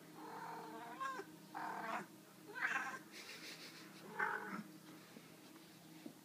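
Kittens play-fighting and giving a string of short, yowling mews, about five cries over a few seconds.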